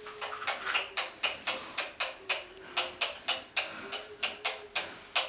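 Sharp clicks in a quick, fairly even rhythm of about four a second, over a faint held tone that steps slightly in pitch.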